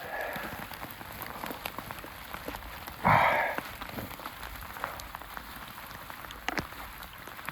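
Steady rain falling, with many scattered drops ticking close by. About three seconds in, a brief louder burst of noise stands out above the rain.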